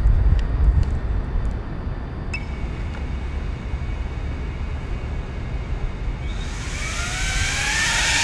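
Wind rumbling on the microphone, then about six and a half seconds in a small FPV quadcopter's motors spin up with a rising whine.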